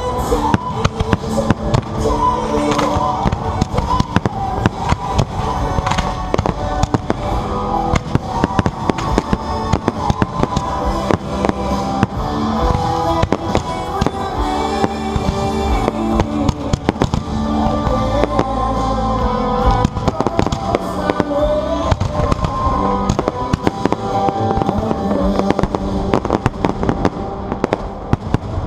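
Fireworks bursting in rapid, continuous succession, sharp bangs and crackles, over music playing along with a pyromusical display.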